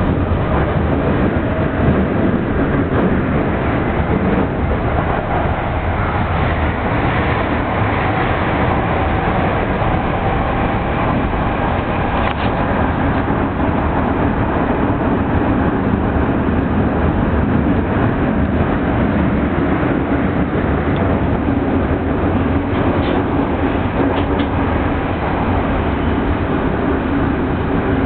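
Odakyu commuter train running through a subway tunnel, heard from inside the passenger car: a steady rumble of wheels on rails with a faint whine, and a few light ticks in the second half.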